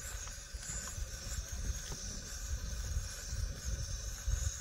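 Outdoor background noise: a steady hiss over an uneven low rumble, with a few faint clicks.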